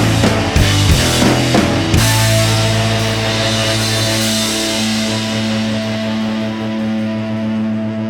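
Rock music: drum hits with distorted electric guitar for about two seconds, then a long held guitar chord that slowly fades.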